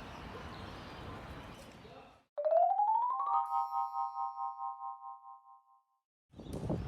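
A steady outdoor background hiss. About two seconds in, a cut brings an edited-in electronic jingle: a tone sliding up over about a second into a held chord that pulses and fades out.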